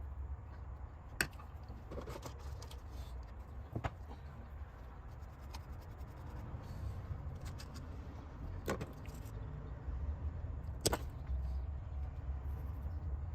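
Scattered light clicks and taps of small hand tools and parts being handled during fine repair work, the sharpest four spaced a few seconds apart, over a steady low hum.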